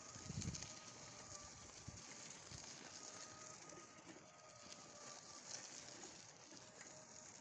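Near silence while riding a bicycle: a faint steady hiss, with a few soft low thumps as the bike jolts over the street, the clearest about half a second in.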